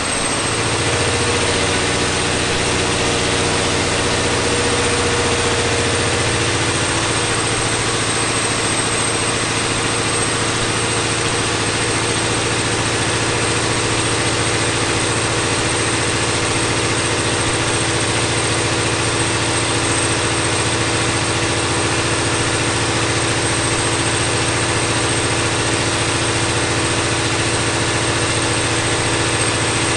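Caterpillar 3508B twin-turbo V8 diesel engine running steadily on a dynamometer, holding a constant speed, with a high steady whine over the engine note.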